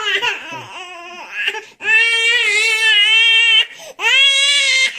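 Infant crying: softer broken cries at first, then two long loud wails, the first about two seconds long starting near the two-second mark, the second about a second long soon after.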